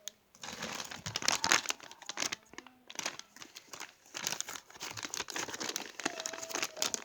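Crinkling and rustling of plastic packaging as squishy toys are handled. It comes in two spells, with a short pause about three seconds in.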